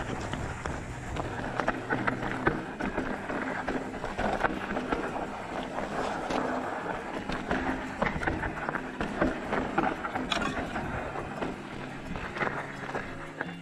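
Rocky Mountain Element full-suspension mountain bike riding over a rough trail: tyres crunching on gravel and the bike rattling, with many sharp clicks.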